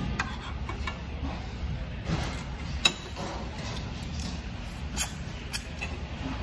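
Eating sounds from gnawing and chewing meat off a stewed pork back-bone held in the hands, with a few sharp clicks, the loudest about three seconds in, over a low steady room hum.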